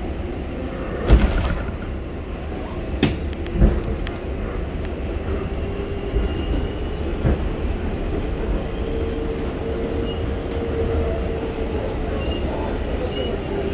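R188 subway train running along elevated track, heard from inside the car: a steady low rumble with three sharp knocks in the first four seconds. A steady whine holds through the middle.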